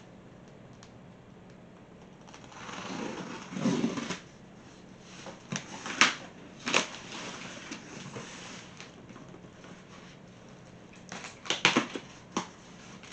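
Cardboard shipping box being handled and opened: a rustling scrape about three seconds in, then scattered sharp clicks and knocks, with a cluster near the end.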